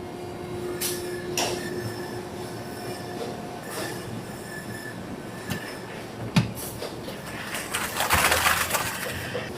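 Poultry-processing machinery running: a steady whine with scattered metallic clicks and clanks, and a louder burst of hissing noise near the end.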